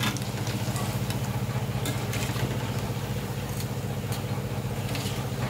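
A steady low machine hum with a fast even pulse, over hot oil sizzling in a kadhai and a few light clinks of a wire skimmer and fork against the pan as fried pakoras are lifted out.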